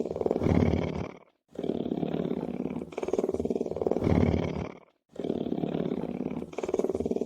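Lion's low rumbling purr, a fast pulsing rasp that swells and then stops abruptly. It repeats in cycles of about three and a half seconds, with two brief silences between them.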